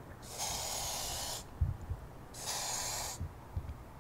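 Aerosol can of wasp spray hissing in two bursts, the first just over a second long and the second a little shorter, aimed at a wasp nest. There is a brief low knock between the two bursts.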